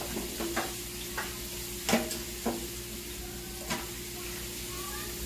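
Chopped shallots, onion and fresh ginger sizzling in a hot pan over high heat, with about five sharp knocks of a utensil against the pan as they are stirred.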